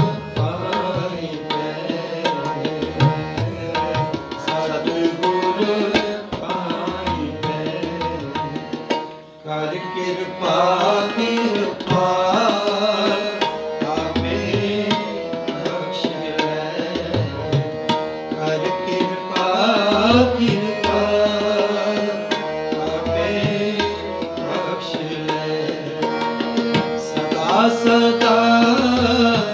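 Sikh kirtan: harmonium chords and melody with tabla drumming, and sung phrases rising and falling over them. The music eases briefly about nine seconds in.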